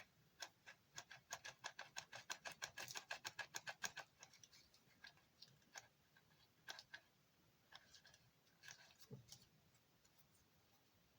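Faint clicking from a 12-volt hot glue gun as a glue stick is fed into it: a quick run of small clicks for about three seconds, then a few scattered ones.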